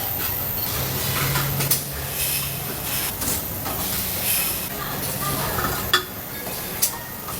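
Factory machinery working stainless steel bottle parts: a steady hum and hiss with metal clinks, and a few sharp clicks.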